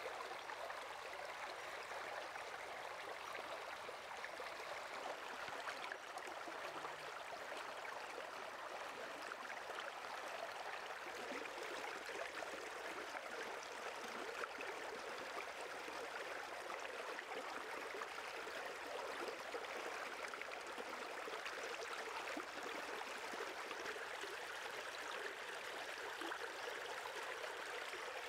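Shallow stream running steadily, water rippling around the legs of a person standing in it.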